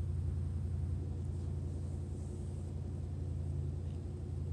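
Steady low hum of room background noise, with a faint high whine above it.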